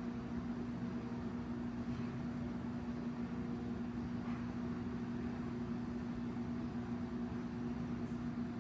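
Steady room hum from running household machinery: one constant low drone over a soft, even hiss.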